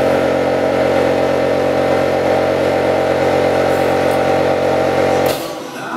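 A loud, steady mechanical hum at one unchanging pitch, like a motor running at constant speed. It cuts off abruptly with a click about five seconds in, and music starts just after.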